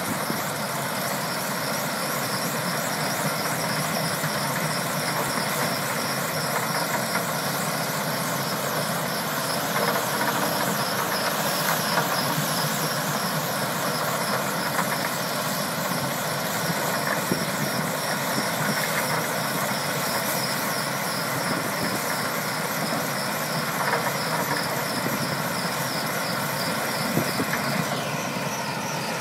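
Powerscreen Warrior 1800 mobile screener running steadily while screening topsoil. Its diesel engine, vibrating screen box and conveyors make a constant mechanical drone, with a few brief knocks.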